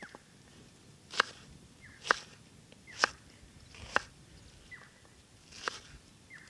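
A run of sharp knocks or strikes, roughly one a second. Several are led by a short falling whistle.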